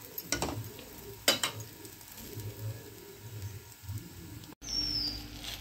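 A metal spatula clicking and scraping against a kadai as a paratha is pressed and turned, over a faint sizzle of frying. Near the end the sound breaks off, and a short falling chirp follows.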